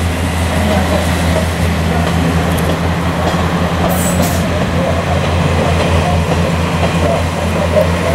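Minami Aso Railway torokko train running, its diesel locomotive giving a steady, evenly pulsing low drone over the rumble of the cars on the rails. A brief high-pitched squeak comes about four seconds in.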